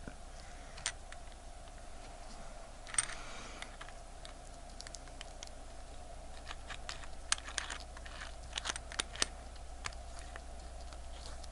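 Faint scattered clicks and a short scrape of a stainless steel screw-down watch case back being seated and turned by fingertip on the watch case. The clicks come more often between about 7 and 9.5 seconds in.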